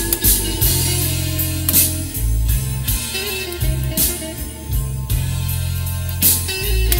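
Music with guitar, a stepping bass line and drum hits, played back from a cassette on a Nakamichi BX-100 deck.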